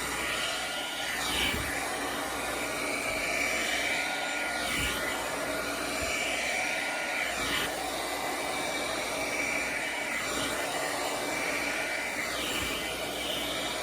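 Hot-air hair dryer brush running on its middle setting: a steady blowing rush of air with a faint high whine, the sound shifting briefly every three seconds or so.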